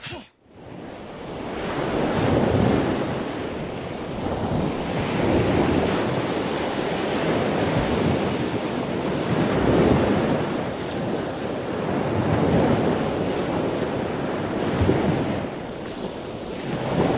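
Ocean surf: an even rushing noise that builds over the first two seconds, then swells and ebbs every two to three seconds.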